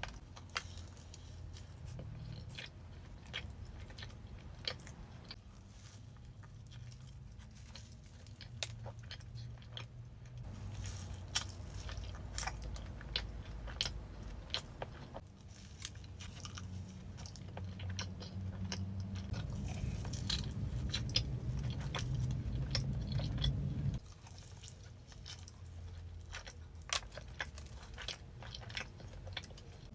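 A person biting and chewing crunchy food close to the microphone, with many sharp crunches and clicks over a low background hum.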